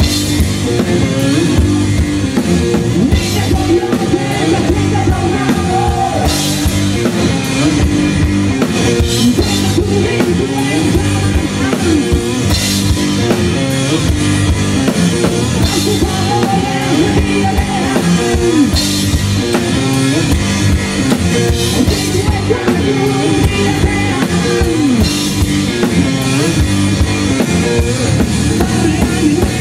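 Live rock band playing loudly: a drum kit pounding out a steady beat under distorted electric guitar, with singing over it.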